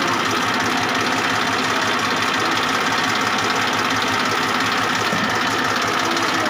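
Massey Ferguson 1035 DI tractor's three-cylinder diesel engine idling steadily.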